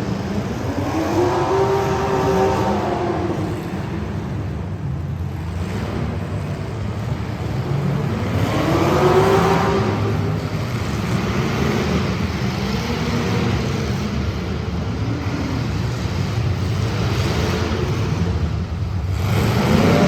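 Street stock race car engines revving past, their pitch rising and falling in several sweeps as cars go by, over a continuous rumble of engines.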